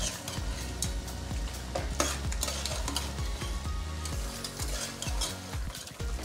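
A metal spoon stirring chicken pieces in a thick masala around a stainless steel pot, with irregular scrapes against the pot, while the food sizzles on the heat.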